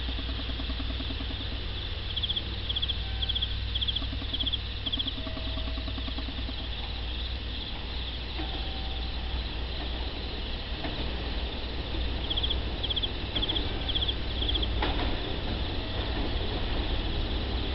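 Insects chirping in regular high pulses, about two a second, in two runs, over a steady low rumble. From about fifteen seconds in, the noise of an approaching electric train rises.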